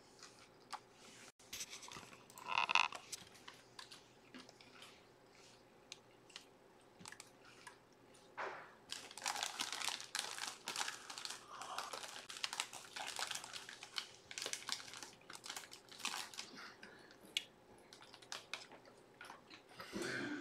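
Faint clicking and rustling of someone working at a desk, like typing on a computer keyboard, growing busier about eight seconds in. A brief tone sounds near three seconds in.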